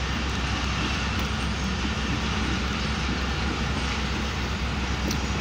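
Pakistan Railways ZCU-30 diesel-electric locomotive running with a steady low engine rumble as it hauls its train slowly along, mixed with the even rushing noise of the moving train.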